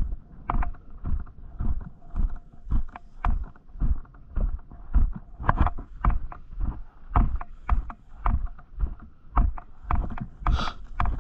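Footsteps of a person walking steadily across a grass lawn, a little under two steps a second, each step a dull thud picked up through a body-worn camera.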